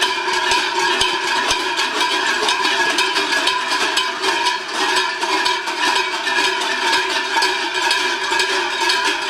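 Many large cowbells, hung in a row around the waist of each walking costumed figure, clanging together without pause in a dense, steady jangle.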